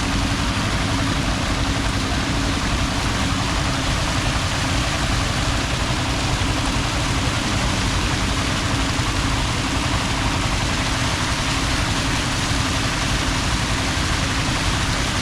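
A steady engine hum with a low rumble under an even rush of noise, unchanging throughout.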